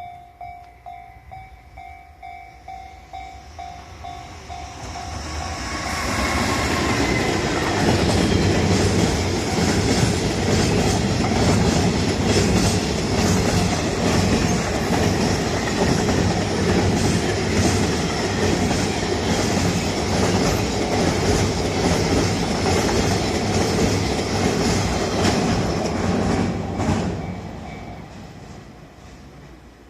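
A Japanese level-crossing bell dings rapidly, then fades under the rising noise of a train. A long freight train hauled by a JR Freight EH500 electric locomotive rumbles past, its wheels clicking over the rail joints for about twenty seconds, then dies away near the end.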